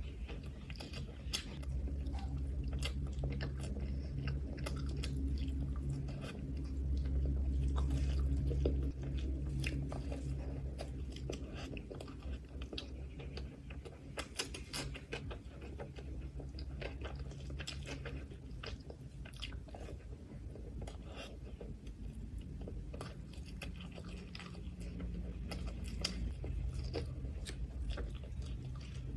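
Close-up eating sounds: wet chewing and smacking of soft liver curry and rice eaten by hand, with crunchy bites of raw cucumber, many small clicks over a low steady hum.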